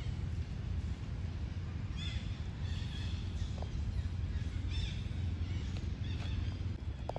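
Outdoor ambience: a steady low rumble with a few short, high chirps or squeaks from small animals, about two, three, five and six seconds in.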